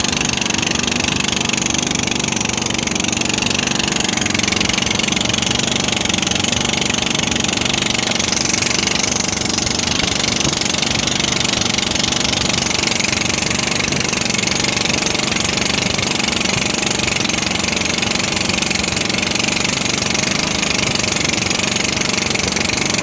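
Small inboard engine of a wooden outrigger fishing boat running steadily under way, with an even steady hiss over it.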